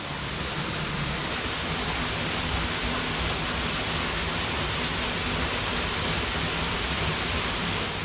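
A tall, narrow waterfall pouring over a rock overhang: a steady, even hiss of falling water.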